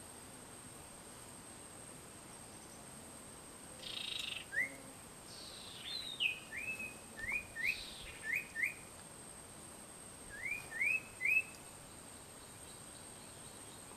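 Sirtu bird calls: a run of about a dozen short rising whistled notes in loose groups from about four seconds in, mixed with two brief harsh chattering notes.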